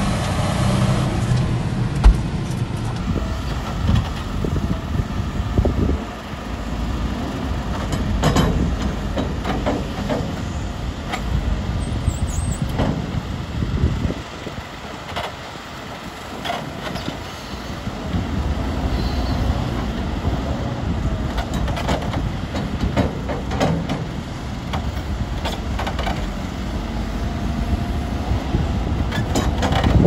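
A John Deere tractor running, heard from inside its cab, then, after a cut about three seconds in, a JCB telehandler's diesel engine working as its silage shear-grab bucket cuts into a silage clamp, with scattered knocks and clanks.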